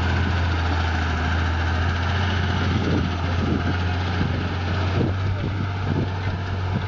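Diesel engine of a heavy farm machine running steadily under a continuous low hum, with the machine's mechanical noise over it.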